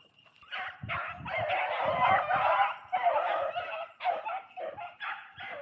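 Several beagles baying together, the calls overlapping into a continuous chorus from about half a second in, then breaking into separate bawls near the end.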